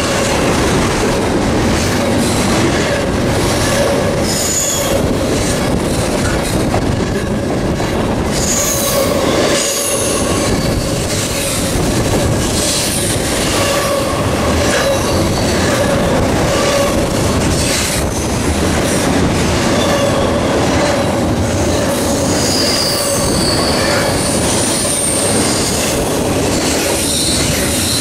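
Loud, steady rumble of a CSX double-stack intermodal freight train's container cars rolling past close by at speed, with steel wheels squealing on the rail and a rapid clicking from the wheels.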